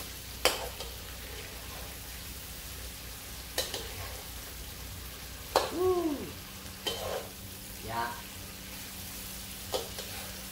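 Fish in sauce sizzling in a wok over a propane burner while a metal spatula stirs it, knocking and scraping against the pan about five times. A brief pitched, arching sound is heard about halfway through.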